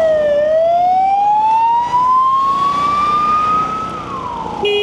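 Emergency vehicle siren wailing, its pitch sliding down, then slowly up over about three seconds, then down again, over road noise. Just before the end a steady horn blast starts.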